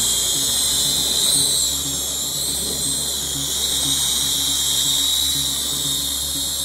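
Syma X5UW quadcopter in flight, its four motors and propellers giving a steady high-pitched whine that wavers briefly in pitch about a second and a half in.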